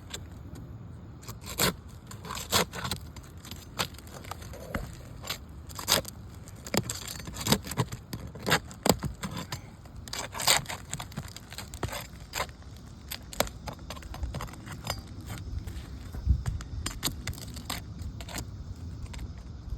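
Irregular clicks, scrapes and crackles from handling asphalt roof shingles and working them loose on the roof, with no steady rhythm.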